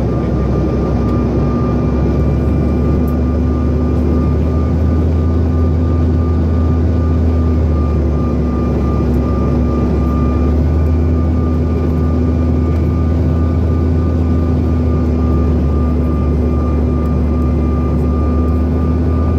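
Bombardier CRJ900's rear-mounted GE CF34 turbofan engines running steadily, heard from inside the cabin as a deep, even drone with a steady whine on top.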